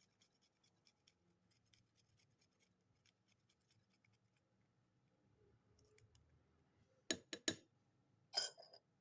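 Garlic clove being peeled: faint scratches and small ticks at near-silent level, then about seven seconds in a quick run of three sharp clicks, and a short scraping burst near the end.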